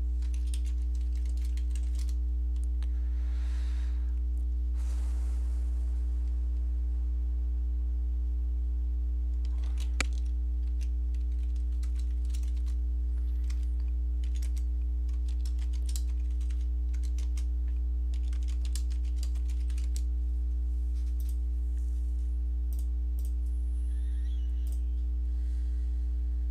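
Computer keyboard typing: irregular keystrokes in short runs, with one sharper click about ten seconds in, over a steady low hum.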